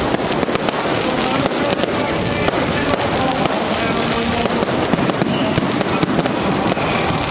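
Fireworks display: aerial shells and rising comets going off in quick succession, many sharp bangs a second over a dense continuous rush of noise.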